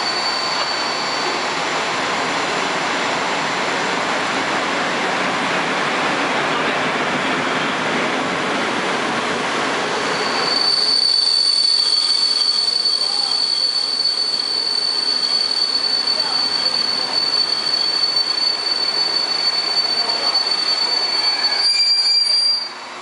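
Locomotive-hauled passenger train (EP09 electric locomotive with passenger coaches) rolling into a station past the platform. From about ten seconds in, a steady high-pitched squeal of the wheels and brakes sets in as the train slows, and the sound cuts off abruptly near the end.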